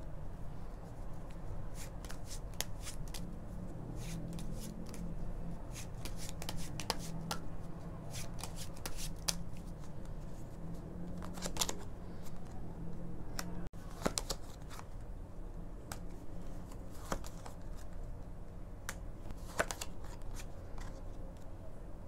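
A deck of cards shuffled and handled by hand: runs of quick card clicks and slides in bursts. Cards are turned over and laid down on the cloth.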